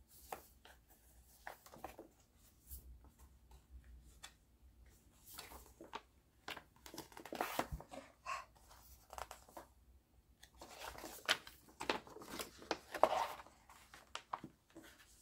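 Paper rustling and crinkling as a folded paper poster is handled and opened out, in irregular bursts that are loudest about halfway through and again near the end.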